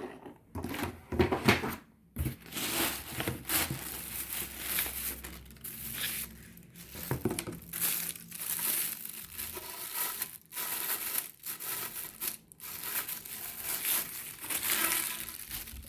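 Packaging crinkling and rustling, with irregular crackles and handling knocks, as vacuum cleaner parts are unwrapped.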